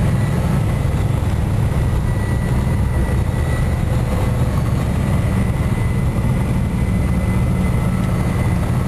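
Piper Cherokee 180's four-cylinder Lycoming O-360 engine and propeller running steadily, a constant low rumble with a thin, steady high tone above it.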